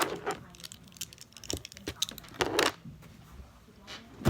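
A bracelet handled close to the microphone: scattered small clicks and rattles, with a louder shake about two and a half seconds in.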